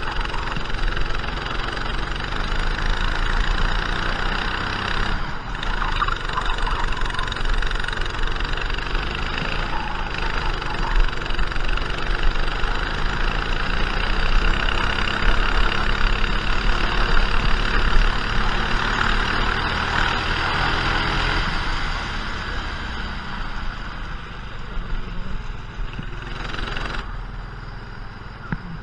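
Racing kart engine running hard through a lap, its pitch rising and falling with the throttle from corner to corner, heard through the onboard camera. It gets quieter over the last few seconds.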